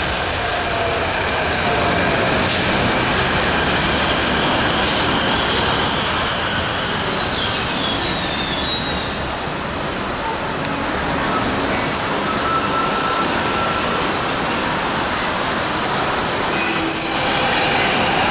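MTR C-Train metro train running past the platform, with steady running noise from wheels and rails and a few brief high wheel squeals.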